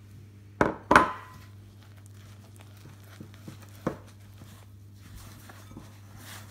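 Hands working yogurt into flour in a glass mixing bowl: soft squishing and rubbing of the wet dough, with sharp knocks against the glass bowl, two in quick succession about half a second in, the second ringing briefly, and a smaller one a few seconds later. A low steady hum runs underneath.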